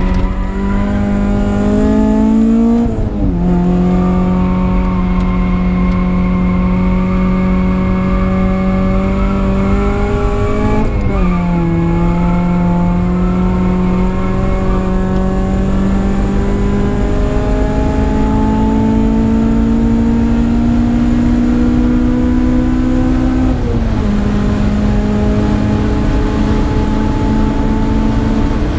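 Supercharged Honda K20 inline-four in a Civic, heard from inside the cabin while driving on track. The revs climb steadily in each gear, with three upshifts, about three, eleven and twenty-four seconds in, each dropping the pitch before it climbs again.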